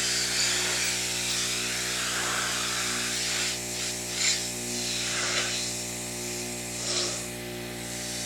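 Pressure washer running steadily with a constant buzzing hum, while its spray hisses against an old truck's sheet metal in several short surges as the wand sweeps.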